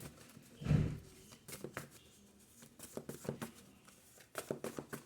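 Quiet handling of reading cards: scattered light clicks and rustles, with one short, louder low sound about three-quarters of a second in.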